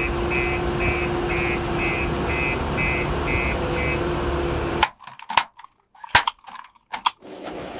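Toy roller truck's electronic sound effect: a loud, crackly engine-like rumble with a steady hum and a run of quick beeps, about two a second, that cuts off abruptly about five seconds in. Scattered sharp clicks and knocks follow.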